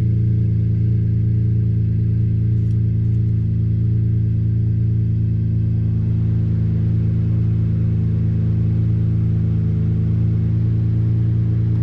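2021 GMC Canyon AT4's engine idling steadily, warming up to temperature after a thermostat replacement.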